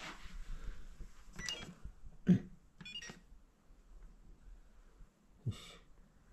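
Touch-panel wall switch giving short electronic beeps as a finger presses its buttons, with a couple of soft knocks of the fingertip or hand against the panel.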